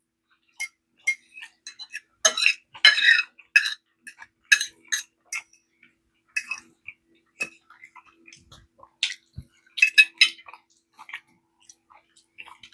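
Cutlery clinking against a plate and dishes as food is eaten, a run of short irregular clicks and clinks.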